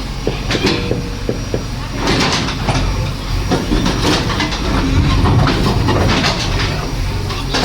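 JCB 3DX backhoe loader's diesel engine running steadily under work, with repeated metallic clanks and knocks from the bucket and arms.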